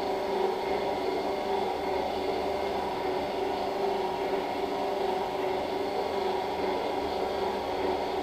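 Steady hum and hiss of running surgical equipment, with a constant low tone underneath.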